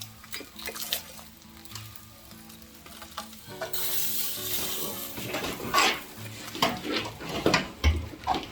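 A whole chicken sizzling as it roasts in a wood-burning fireplace, the hiss swelling about four seconds in, then a run of sharp clicks and clatters in the second half, over soft background music.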